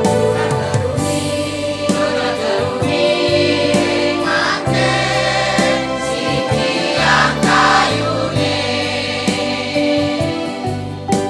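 Elderly women's choir singing a Balinese folk song in unison, over a keyboard accompaniment with sustained bass notes.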